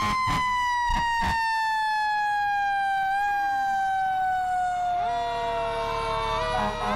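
Fire engine siren in a long, slow falling wail, its pitch winding down steadily. There are a few short sharp blasts in the first second and a half, and about five seconds in a second siren starts up and climbs.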